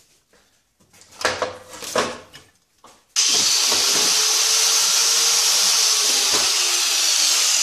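A few knocks as an angle grinder is picked up and handled. About three seconds in, the grinder with its cutoff wheel switches on suddenly and runs at a steady, loud, hissing whine.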